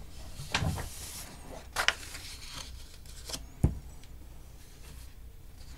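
Sheets of paper rustling and sliding as they are handled and laid on a desk, with a few short knocks. The sharpest knock comes about three and a half seconds in.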